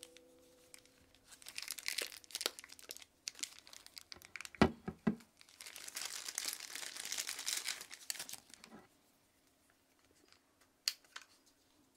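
Thin plastic packaging crinkling and tearing as a small wrapped camera accessory is pulled open by hand, in two stretches, with a few sharp knocks in the middle. A couple of small clicks follow near the end.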